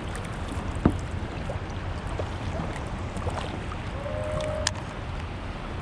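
Sea water sloshing against a kayak's hull with wind on the microphone. There is a sharp knock just under a second in and a short faint squeak about four seconds in.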